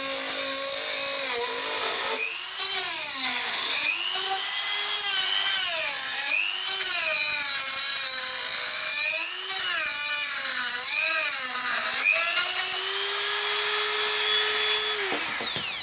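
High-speed electric power tool running while it is worked against the plastic, its pitch repeatedly dipping under load and picking up again, then switched off and winding down near the end.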